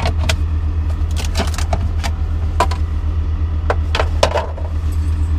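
A steady low engine drone, like an idling motor, runs throughout, with scattered sharp clicks and knocks over it.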